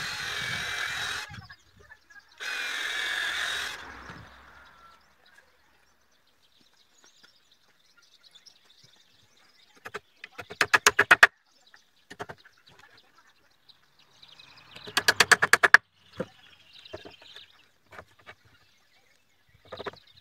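Cordless drill driving screws into wood: two short runs of the motor in the first few seconds, and later two brief bursts of fast, evenly spaced clicking, with scattered light knocks of wood between.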